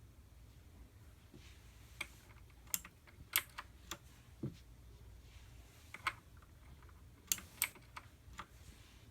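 Xenics Titan Mark 7 mechanical keyboard with clicky blue switches, keys pressed one at a time in a slow, irregular pattern: about ten sharp clicks, some in quick pairs, with pauses of a second or more between.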